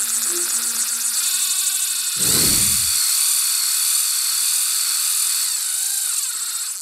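Intro sound effect: a loud, high whirring hiss that flutters rapidly for the first two seconds, with a deep falling boom about two seconds in, then runs on steadily and cuts off at the end.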